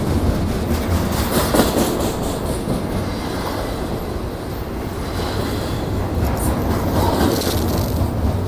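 Union Pacific double-stack intermodal freight cars rolling past: a steady, loud rumble of wheels on rail with irregular clicks and clanks through it.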